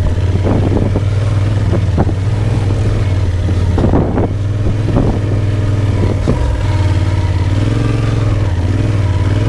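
Big adventure motorcycle's engine running steadily while riding, with a few short thumps along the way; the engine note shifts a little near the end.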